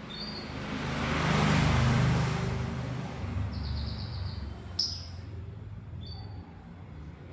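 Lovebirds giving a few short, high chirps, one sharper chirp near the middle. Under them, a swell of rumbling noise rises and fades about two seconds in, like a vehicle passing.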